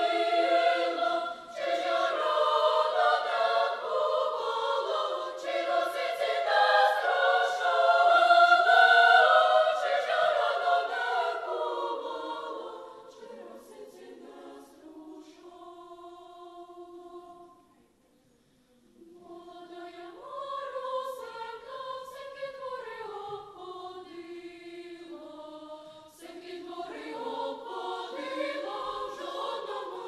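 Children's choir singing in several parts. It is loud for the first dozen seconds, then goes quieter, breaks off for about a second just past the middle, and carries on softly.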